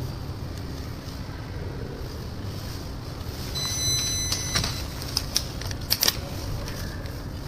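Light clicks and knocks from handling a metal laminating mold and screen glass, clustered in the middle, over a steady low hum. A brief high-pitched tone sounds about three and a half seconds in.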